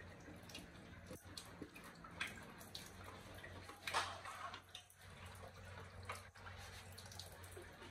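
Water dripping faintly in a small tiled room: scattered drips and light ticks, one louder about four seconds in, over a low steady hum.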